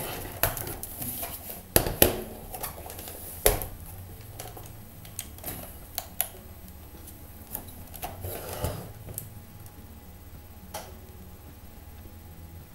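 Scattered clicks and knocks from a Samsung NP300 laptop being handled and switched on after reassembly, over a faint steady low hum.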